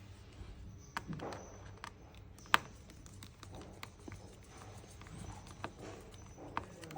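Scattered sharp clicks and light taps of small metal repair tools on an opened iPad while its LCD screws are being taken out, the loudest click about two and a half seconds in.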